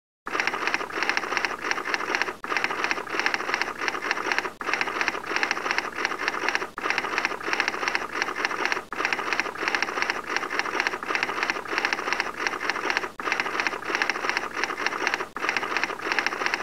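Rapid typewriter-like clatter: a dense run of fast clicks, broken by a short pause about every two seconds.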